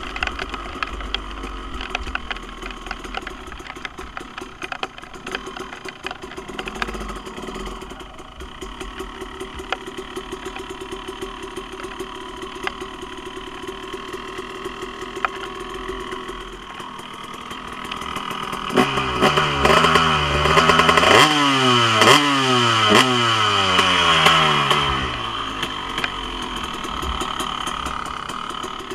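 KTM SX250 single-cylinder two-stroke dirt bike engine, fitted with a Pro Circuit R-304 stainless shorty silencer, ticking over at a steady idle; about two-thirds of the way in it is revved up and down several times in quick blips, then drops back to idle.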